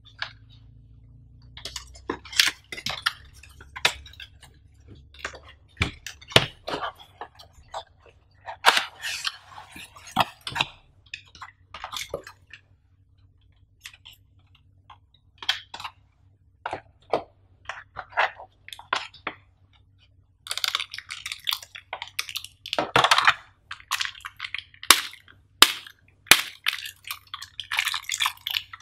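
Cardboard box and clear plastic packaging handled by hand during an unboxing: scattered taps, clicks and scrapes of cardboard and a plastic tray. In the last several seconds comes dense crinkling of the clear plastic bag around the dashboard mat.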